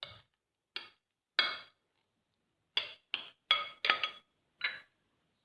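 A spoon clinking against the rim of a bowl about eight times in quick irregular strikes, each ringing briefly, as ingredients are knocked off into the ground chana dal batter.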